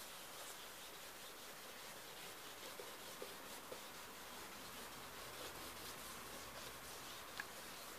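Faint steady rubbing of a brew-soaked applicator over damp paper, with a few light ticks.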